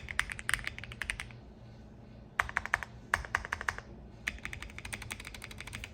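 Fast typing on a Monsgeek M1 mechanical keyboard with lubed Akko POM Silver linear switches, a tape mod and CannonCaps Esper keycaps. The rapid keystroke clicks come in three runs, with a pause of about a second after the first run and a shorter one before the last.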